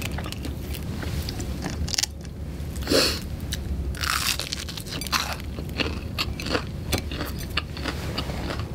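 A bite into a panko-crusted fried chicken cutlet with a loud crunch about three seconds in, followed by crunchy chewing. A steady low hum runs underneath.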